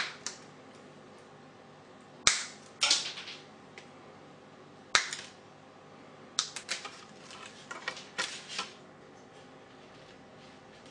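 Wire cutters snipping through the insulated output wires of a computer power supply: about four sharp snips a second or two apart, then a run of lighter clicks and rustles as the cut wires are handled.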